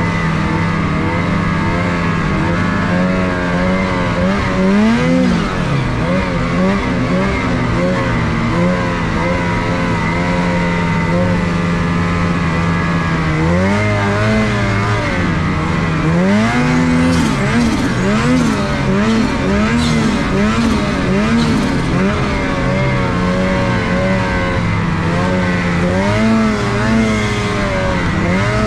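Snowmobile engine running under throttle as the sled rides through snow, its pitch rising and falling again and again as the rider works the throttle, with a steady high whine underneath.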